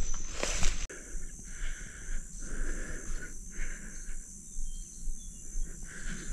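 Insects trilling in pulses broken by short gaps, over a steady high-pitched insect whine. During the first second there is louder rustling, like brushing through tall grass, which cuts off abruptly.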